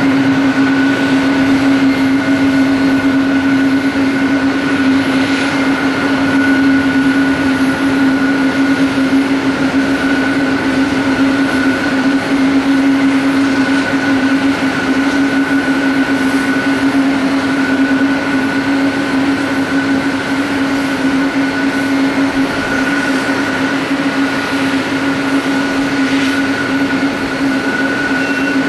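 Steady jet aircraft engine noise: a constant drone with a low hum and a higher whine, holding level throughout.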